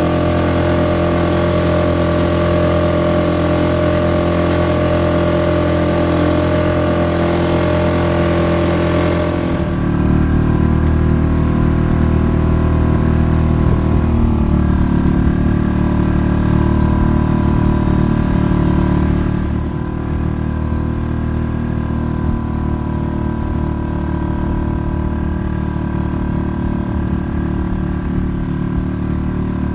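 Small boat's outboard motor running steadily. The engine sound shifts about ten seconds in, when a hiss drops away and the low hum grows, and it eases a little in level near twenty seconds.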